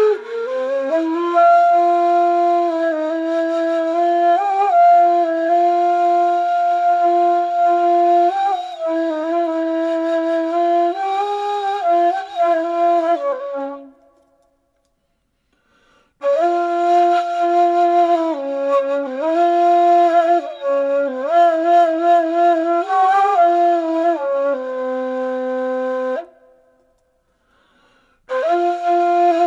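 Music: a flute-like wind instrument playing a slow melody of long held and gently wavering notes. It stops for about two seconds around the middle and again near the end.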